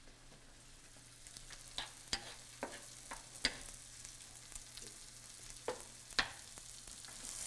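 Pork loin searing in a hot pan: scattered sharp clicks and taps of a utensil against the pan over a faint sizzle, then the sizzle swells loudly near the end.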